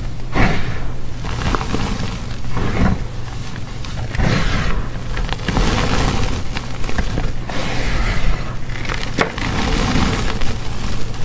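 Hands squeezing and crumbling blocks of gym chalk. It breaks apart with crunchy crackles in uneven bursts every second or so, with softer powdery rustling between them.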